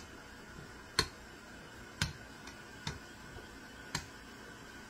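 A rolling pin clicking against a granite counter about once a second, with each back-and-forth stroke, as flour tortilla dough is rolled out thin.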